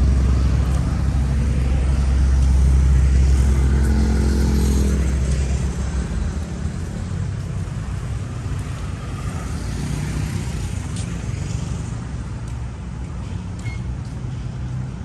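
Road traffic: a loud, low engine rumble from a vehicle close by for about the first six seconds, then easing into a steadier background of passing traffic.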